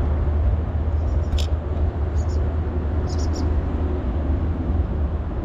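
Wind buffeting the microphone: a loud, steady low rumble, with a few short high chirps about one, two and three seconds in.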